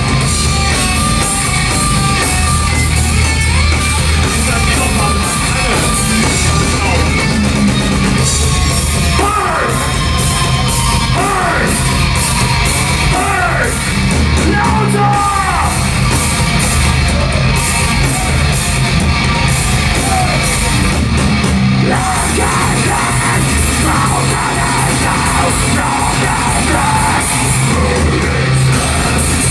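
Live thrash/death metal band playing loud, with shouted vocals over the band.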